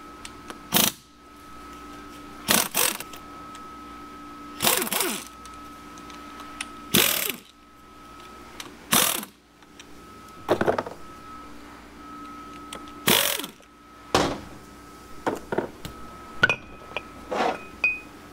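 Hand tools working on a 4L80E automatic transmission during teardown: short metallic clanks and ratcheting bursts every second or two, coming quicker near the end, over a faint steady hum.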